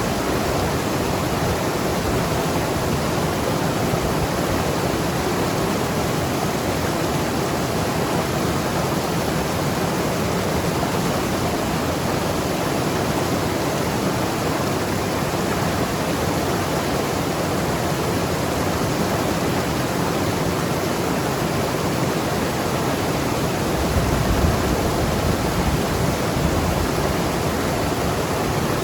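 Mountain river rushing and tumbling over rocks: a steady, even wash of water noise, swelling briefly with a deeper rumble near the end.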